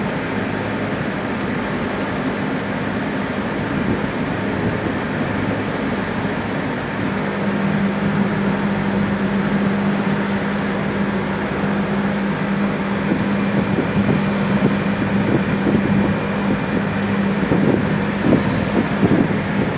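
Steady running noise of an AAON rooftop HVAC unit. A low steady hum joins about seven seconds in, and a short high-pitched chirp repeats about every four seconds.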